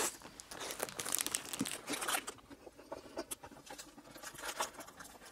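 Paper hamburger wrapper crinkling and rustling in the hands as a burger is eaten from it, in soft, irregular bursts that thin out after about two seconds.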